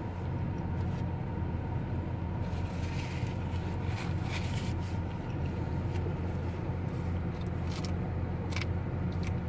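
Steady low hum of a car idling, heard inside the cabin, with a few soft rustles and clicks from napkin handling and eating from about two and a half seconds in.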